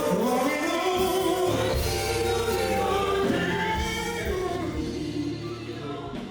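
Church choir singing a gospel hymn with accompaniment, the sound fading out over the last couple of seconds.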